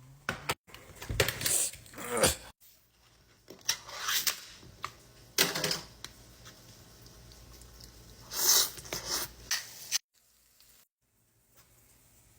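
Kitchen handling noises in several short, separate bursts: rustling, tearing and clattering as food, packaging and utensils are handled. The sound breaks off into dead silence twice near the end.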